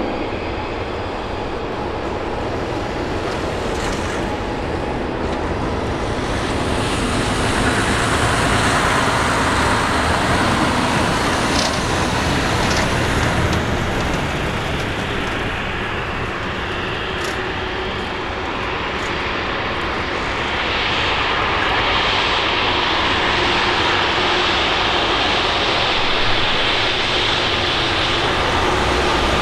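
Embraer 190's two GE CF34-10E turbofan engines running at high power during its takeoff, a loud continuous jet roar and hiss. The roar swells louder about seven seconds in, and again from about twenty seconds in, when a sharper high hiss rises above it.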